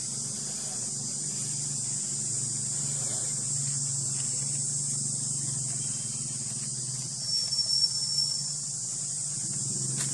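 Steady high-pitched buzzing of an insect chorus over a low steady hum, with a brief louder high thin note about seven seconds in that lasts about a second.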